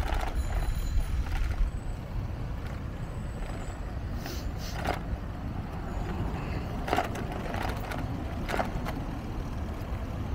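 Steady low rumble of wind and rolling noise from a moving bicycle, with a handful of short sharp clicks scattered through it.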